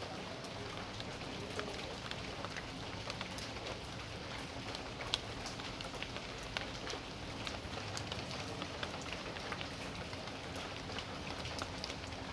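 Steady rain falling on a backyard, a constant hiss with many separate drops tapping sharply on surfaces close by.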